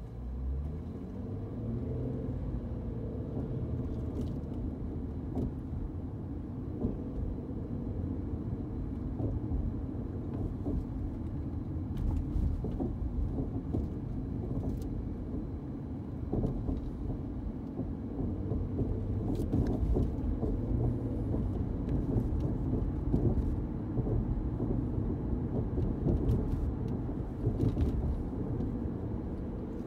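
Infiniti Q50 driving, heard from inside the cabin: the engine note rises as the car pulls away in the first couple of seconds, then a steady low rumble of engine and tyre noise continues while it cruises, with a few light clicks or knocks.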